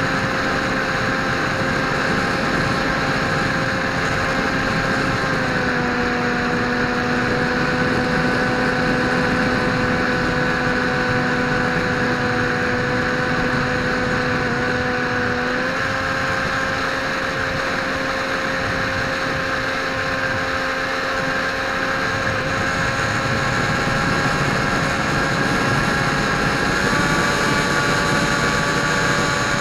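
The electric motor and propeller of a Dynam Hawk Sky RC plane in flight, a steady whine over a hiss. The pitch drops about five seconds in, comes back up around the middle, and rises again near the end as the throttle is changed.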